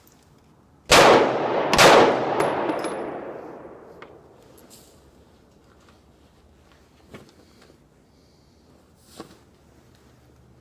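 Two shots from a SCCY CPX-2 9mm pistol, about a second apart, echoing under the range's wooden roof and dying away over about two seconds. Two faint clicks follow later.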